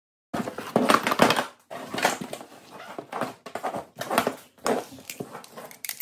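Nylon harness webbing and metal buckles being pulled out of a cardboard box and laid out on a table: irregular rustling of the straps with knocks and clinks of the hardware, starting abruptly a moment in.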